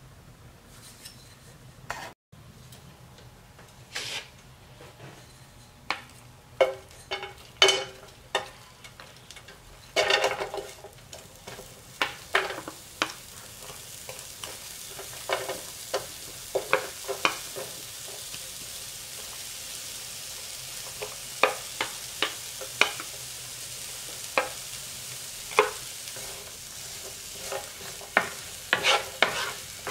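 Sliced red onion frying in hot oil in a nonstick pan: a steady sizzle that builds about a third of the way in. Sharp knocks and scrapes of a wooden spatula against the pan come throughout as the onion is stirred.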